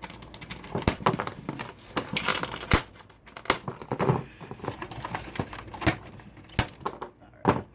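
Plastic packaging crinkling and rustling as it is handled, with sharp clicks and snaps scattered throughout as wire cutters snip it free.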